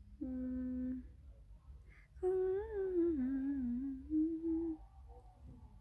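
A young woman's voice humming: one short held note, then after a pause a wandering hummed melody for a few seconds as she tries to recall a tune she has forgotten.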